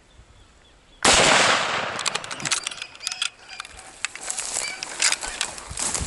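A single .30-06 bolt-action rifle shot about a second in, loud, its report fading away over about a second, followed by scattered clicks and rustling.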